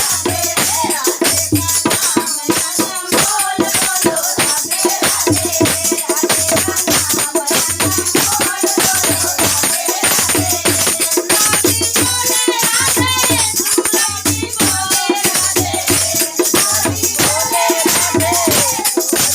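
Devotional music: fast, continuous rattling percussion over a low beat about once a second, with a wavering sung or played melody line.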